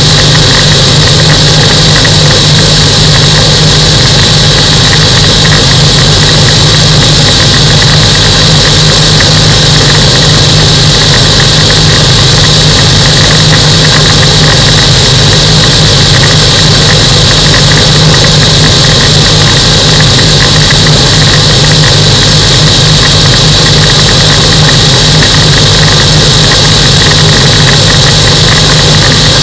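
Microlight aircraft engine running steadily in flight: a loud, unchanging drone with a high hiss over it.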